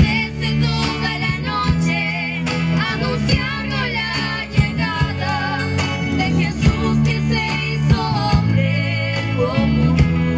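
Live performance of a Christmas song: sung vocals over guitar accompaniment with a steady beat.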